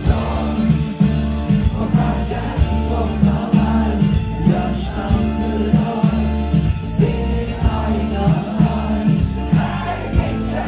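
Live rock band playing: drum kit, bass and electric guitar with a steady beat, and singing over it, heard from the crowd through a phone's microphone.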